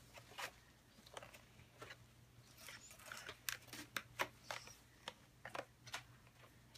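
Wrapping paper crinkling and tearing as a flat gift box is unwrapped: faint, irregular crackles and rips, over a steady low hum.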